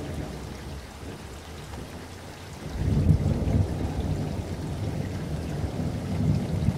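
Waves washing onto a shore: a steady rushing hiss over a low rumble that grows louder about three seconds in.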